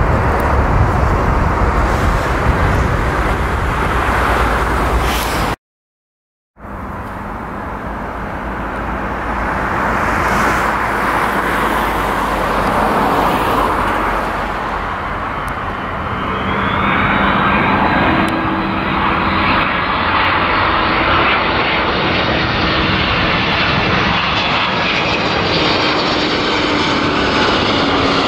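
Jet engine rumble from a twin-jet airliner on the runway, cut off abruptly. Then the engines of an Egyptair Cargo twin-engine freighter on landing approach, growing louder as it nears, with a whine of several tones that slowly fall in pitch.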